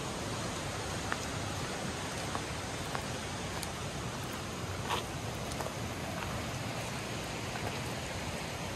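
Mountain stream flowing steadily, a continuous rush of water, with a few faint clicks scattered through.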